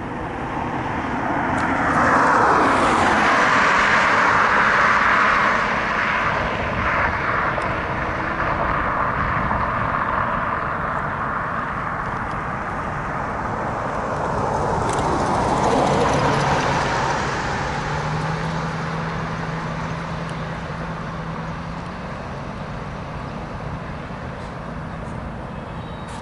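Road traffic: cars passing close by, twice, each swelling and fading, the first about two seconds in and the second around the middle. A steady low hum runs under the second pass. A slow freight train's diesel locomotives approach in the background.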